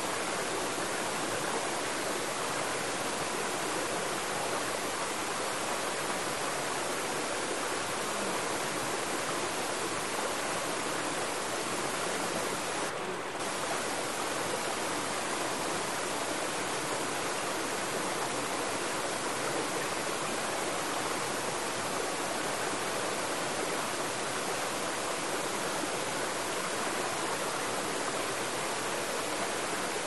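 Mountain stream rushing and splashing over boulders in small cascades, a steady wash of water noise. It dips briefly about halfway through, then carries on as before.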